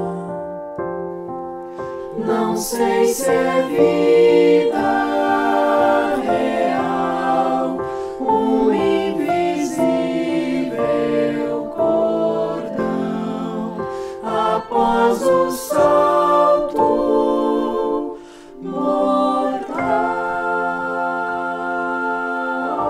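Mixed-voice chamber choir singing a cappella in several parts. After a brief dip about three-quarters of the way through, the voices settle on a long held chord with a steady high note on top.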